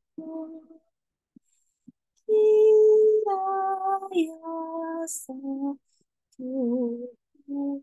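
A woman's voice singing wordless, drawn-out tones, holding each note steady and stepping between several pitches with short breaks; the loudest note comes a little over two seconds in, and a note near the end wavers. A brief breathy hiss about five seconds in.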